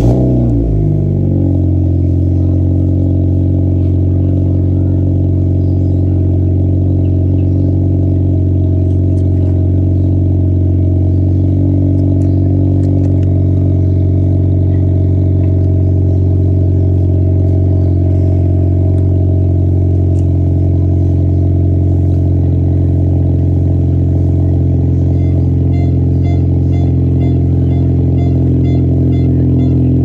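A Honda sedan's engine starting through an aftermarket muffler: it catches with a short rev that falls away within a second or two, then idles steadily out of the exhaust tip.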